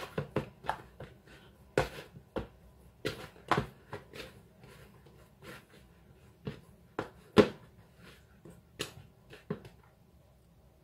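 Hands pressing and slapping soft scone dough in a plastic mixing bowl: an irregular run of short, soft knocks and pats of dough and bowl, the loudest about seven seconds in, dying away near the end.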